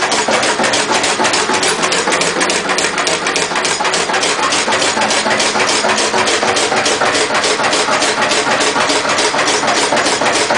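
Lister CS stationary diesel engine running slowly and evenly on waste vegetable oil, set to its low-compression position, with a steady, regular beat of knocks.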